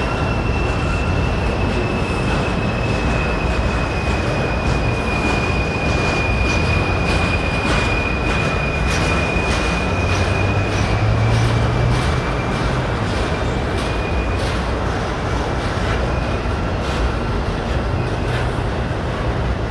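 Double-stack intermodal well cars rolling past on steel rails with a steady rumble. A thin, high wheel squeal sinks slowly in pitch and fades out about two-thirds of the way through. From about a third of the way in, a run of sharp clicks comes from the wheels.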